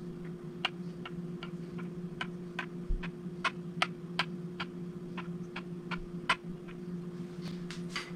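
A fret rocker clicking against the frets of a Harley Benton TE-62CC Telecaster's neck as it is rocked across them, a string of light sharp ticks about two to three a second over a low steady hum. The clicks are the tool tipping on frets that sit slightly high.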